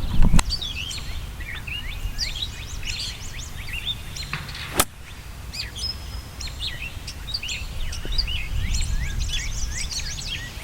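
Several birds chirping and calling in quick, overlapping short notes, over a low rumble of wind on the microphone. A single sharp click sounds about five seconds in.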